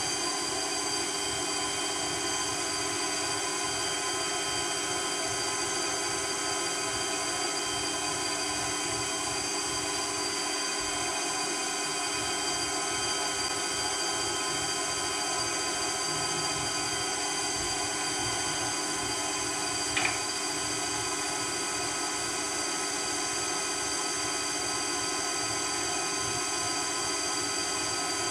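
Electric meat grinder with a sausage-stuffing horn running steadily while sausage is stuffed into natural casing. It gives an even motor whine of several steady tones, with one short click about 20 seconds in.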